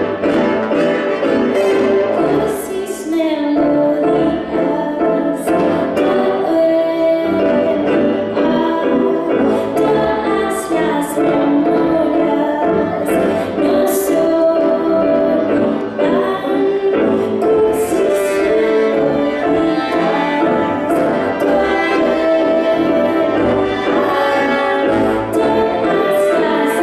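Live band music with a woman singing over it, playing without a break.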